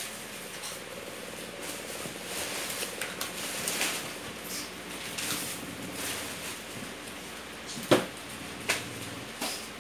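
Rustling and light clicks of goods and packaging being handled, with one sharp knock about eight seconds in, over the steady hiss of a CCTV camera's microphone.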